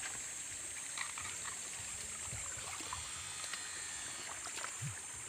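Shallow stream water trickling steadily, with faint scattered splashes and clicks and a constant high hiss.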